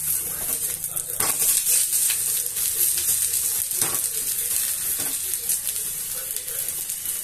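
Ragi rotti sizzling on a hot tawa, a steady hiss, with a flat spatula scraping against the pan a few times as the rotti is turned and pressed.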